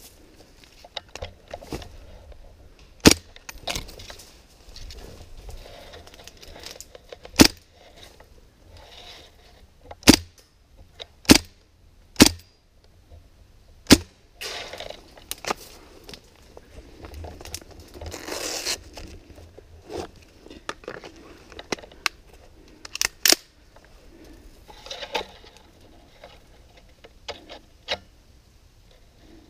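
Airsoft guns firing irregular single shots, each a short sharp crack, spaced a second to several seconds apart. Between about 14 and 19 seconds in there is a longer stretch of rustling and crackling noise.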